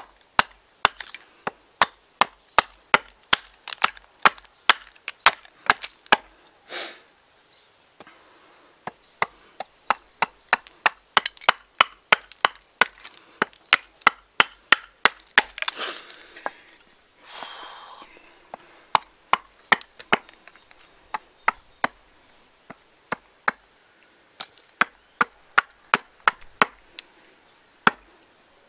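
Hand axe chopping out a spoon blank from seasoned alder: quick sharp knocks, about two or three a second, in three runs with short pauses between. The wood is bone dry and hard, so each blow has to land hard.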